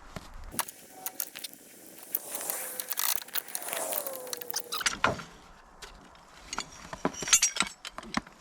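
Metal clinks and rattles of parts being handled as the winter cab enclosure is taken off a Kubota BX compact tractor, with a longer rasping noise from about two to five seconds in.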